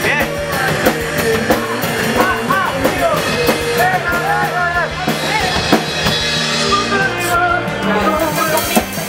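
Rock song with drum kit, bass guitar and a sung vocal line.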